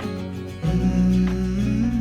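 Background music: a pop song in a gap between sung lines, with held notes and a louder chord coming in about half a second in.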